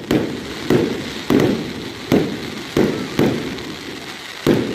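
Aerial fireworks shells bursting overhead: about eight sharp bangs at uneven intervals of half a second to a second, each trailing off in an echo.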